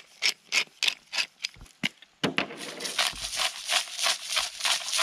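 Hand-twisted salt and pepper grinder grinding over the pan: a quick run of short rasping grinds, about four a second, getting faster and louder about two seconds in.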